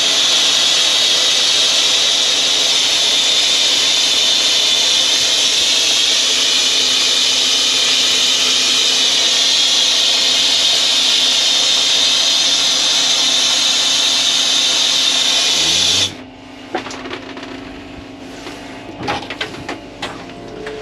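Compressed air hissing loudly and steadily out through an RV shower valve as the water line is blown out for winterizing. The hiss cuts off suddenly about sixteen seconds in when the valve is shut, leaving a low steady hum and a few light clicks and knocks.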